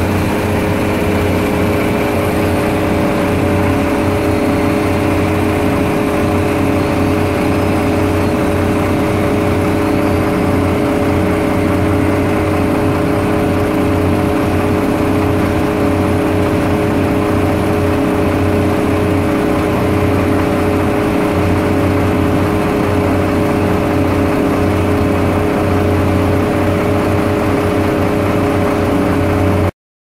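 Heavy diesel engines of an excavator and a concrete mixer truck running steadily at close range, a constant drone with no change in speed. It cuts off abruptly just before the end.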